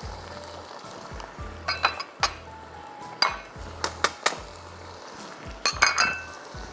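A kitchen utensil clinking and knocking against a cooking pan as cheesy sauce is added, about ten sharp knocks in three quick clusters. Soft background music plays underneath.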